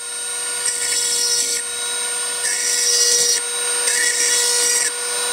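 Dremel rotary tool running at a steady high-pitched whine while a small drill bit bores into the metal wiper spindle. Three times the bit bites in with a harsher grinding hiss that lasts about a second each. The tool is short of power for drilling this metal.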